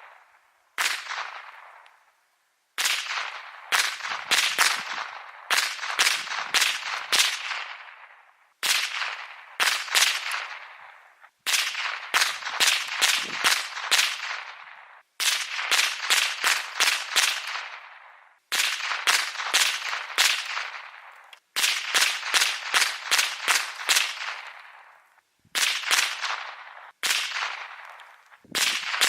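Ruger 10/22 semi-automatic .22 LR rifle firing rapid strings of shots, several in quick succession with short pauses between strings. Each string of sharp cracks trails off in a fading echo.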